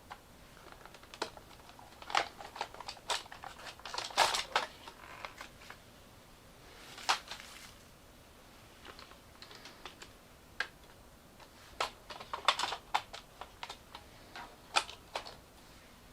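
Hard plastic parts of a Roomba's cleaning unit clicking and clattering as they are handled and fitted by hand, in irregular bursts of sharp clicks with a short pause about halfway through.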